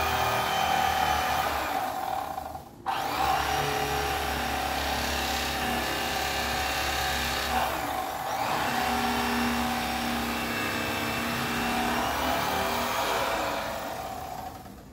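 Electric fillet knife running, a steady motor buzz as its reciprocating blades cut through crappie. It cuts out briefly just before three seconds in, starts again at once, and winds down near the end.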